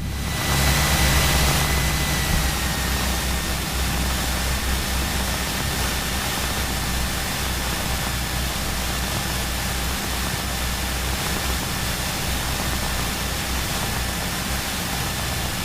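Cessna 172's piston engine running steadily at low power, heard inside the cockpit as a low drone under an even hiss, with a faint high whine.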